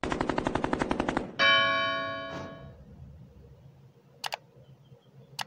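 Intro sound effects: a rapid run of ticks, about thirteen a second, for just over a second, then a bright bell chime that rings out and fades. A quick double mouse click follows about four seconds in, and another click near the end.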